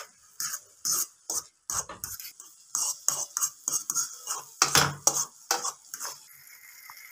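A fork scraping and clinking against a wok while stirring instant noodles, in a quick run of irregular scrapes. The scraping stops about six seconds in, leaving a steady hiss.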